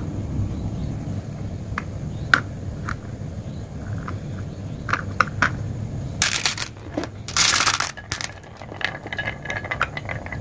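Small plastic clicks and scrapes as a toy truck is handled and set down on a wooden marble-run board, with two louder scraping rushes about six to eight seconds in.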